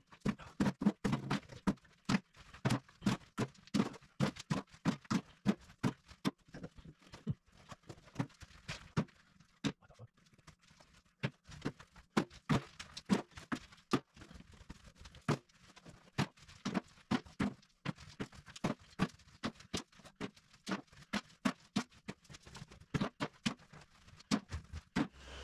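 Chunks of jackhammered floor rubble tossed by hand into a wheelbarrow, one after another: a run of sharp knocks and clatters, about two a second, with a short lull near the middle.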